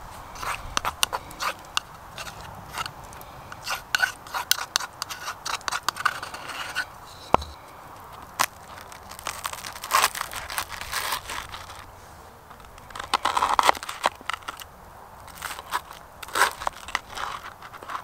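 A metal knife and spoon spreading lobster mayonnaise over crisp toasted bread, with many short, irregular scrapes and crunchy clicks.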